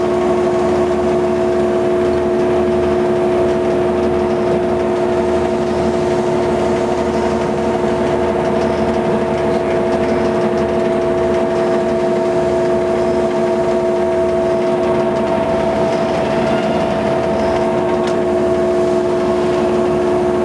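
Blanchard 20D rotary surface grinder running: a steady mechanical hum with two strong, unchanging pitched tones.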